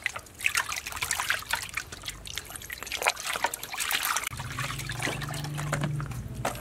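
Water sloshing, splashing and trickling in a basin as whole fish are rubbed and rinsed by hand, in quick irregular strokes. A low steady hum joins in about four seconds in and fades near the end.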